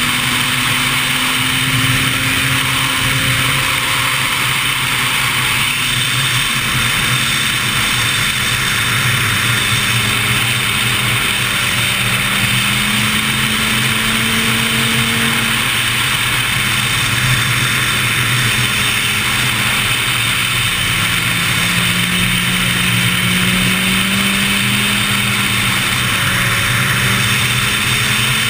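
Sport motorcycle at highway speed: a steady engine drone that slowly rises and falls in pitch, under a constant heavy rush of wind and road noise.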